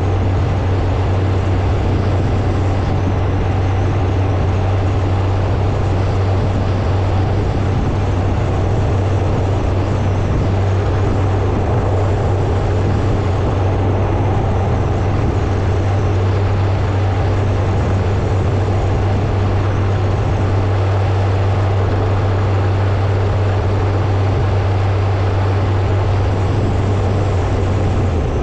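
Motorcycle riding at a steady speed: a constant low engine drone under an even rushing noise of wind and road.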